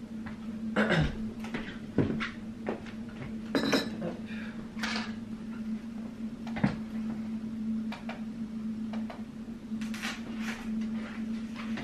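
Scattered light knocks and clatter of household objects being handled, over a steady low hum.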